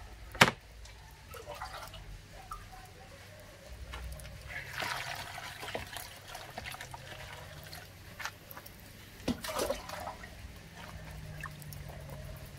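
Hands washing food in a basin of water: splashing, dripping and trickling, with a sharp knock about half a second in and a couple more knocks a little before the end.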